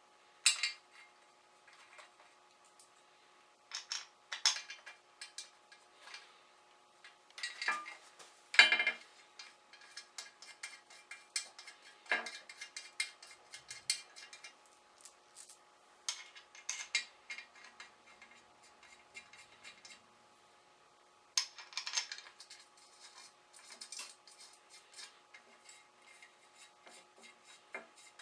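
Steel bolts and hand tools clinking against the engine's metal covers, with runs of quick, even clicks from a hand ratchet as the valve cover bolts are run down. The loudest knocks come about eight and twenty-two seconds in.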